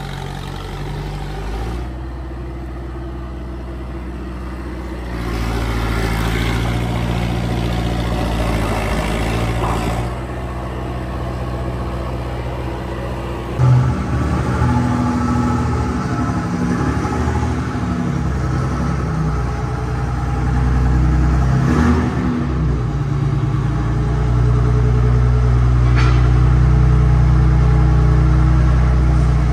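Large diesel engine of a Caterpillar earthmoving machine running under working load, its note and level shifting as it works. There is a sharp knock about 14 s in, after which the engine runs louder.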